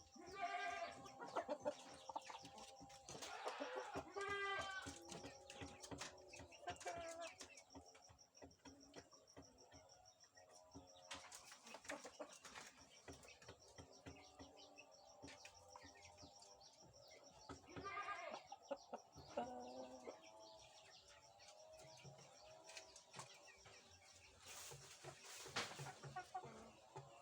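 Rooster calling and clucking in several separate bouts, with quieter stretches between. A faint steady high whine runs underneath.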